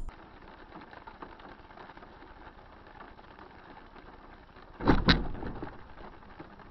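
Faint steady road noise, then about five seconds in two loud bangs in quick succession, as of a vehicle collision.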